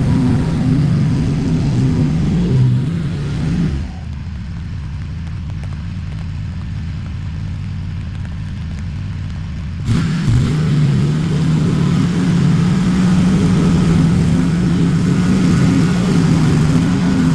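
Small petrol engine of outdoor power equipment running steadily under load. About 4 seconds in the sound goes duller and a little quieter, then comes back full about 10 seconds in.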